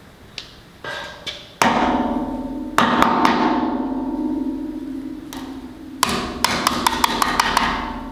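Metal clanks on a steel truck frame rail, which rings on after each strike with a steady tone that slowly fades. Near the end comes a quick run of sharp clicks, about six in a second.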